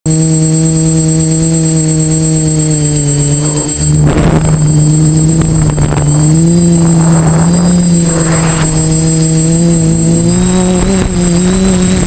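Seeker 450 multirotor drone's electric motors and propellers humming steadily, heard through its onboard camera, the pitch drifting slightly as the throttle changes, with a thin steady high whine above it. Bursts of rushing air noise come about four seconds in and again around seven and eight and a half seconds.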